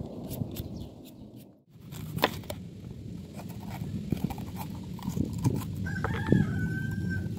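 Vegetable peeler scraping skin off a potato in quick strokes, then a knife cutting into a bell pepper and knocking on a wooden cutting board. Near the end a rooster crows once, one long held call.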